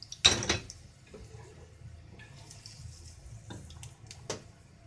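A spoon clatters once against dishware just after the start, then two light utensil clicks on the small frying pan near the end. Underneath is a faint hiss of ginger strips sizzling in hot sesame oil.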